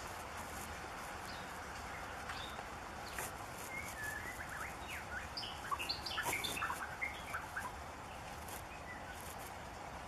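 Male white-rumped shama singing: a burst of quick, varied whistled notes, sliding up and down, lasting about four seconds, over a steady background hiss.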